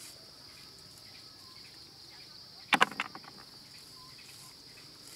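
Insects chirring steadily, a thin high-pitched drone. A short cluster of sharp knocks or clatter about three seconds in.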